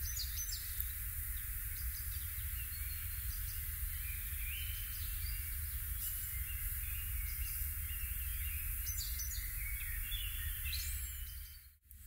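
Several small birds chirping and singing at intervals over a steady forest hiss and low rumble. The sound fades out just before the end.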